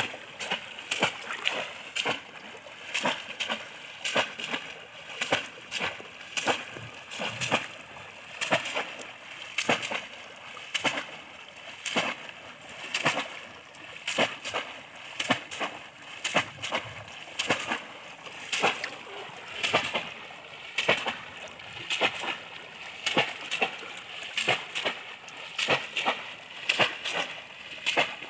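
Bamboo polo fish traps plunged again and again into shallow pond water: a continuous run of splashes, about two a second and unevenly spaced as two traps strike the water out of step. This is polo fishing, where the open-bottomed trap is slammed down over the pond bed to pin fish beneath it.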